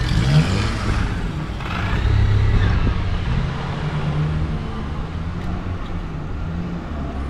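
Road traffic passing close by: a car's low engine hum with tyre hiss that swells during the first few seconds, then settles to a steady hum.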